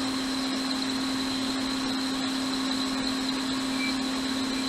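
Steady hum and rush of air from a fan-driven machine on an electronics repair bench, with a constant high whine over it.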